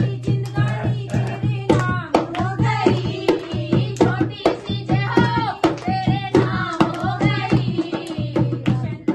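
Group of women singing a devotional bhajan to a dholak played in a quick, steady beat, with hand clapping.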